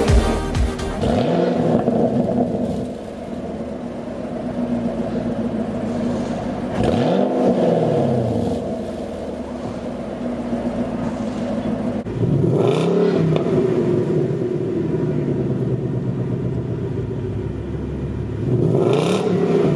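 Stock V8 sports-car exhaust idling, blipped three times about six seconds apart; each rev rises quickly and falls back to idle.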